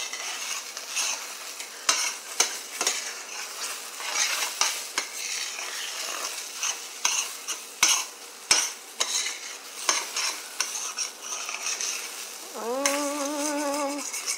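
Scrambled eggs sizzling in a stainless steel frying pan while a fork stirs them, scraping and clicking against the pan bottom over and over. A short steady hum sounds near the end.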